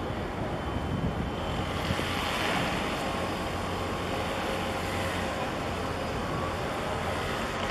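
Wind on the microphone with a steady low hum underneath.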